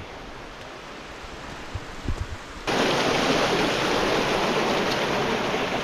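Creek water rushing steadily over rock, with a few low bumps about two seconds in; about two and a half seconds in the rush jumps abruptly much louder and stays steady.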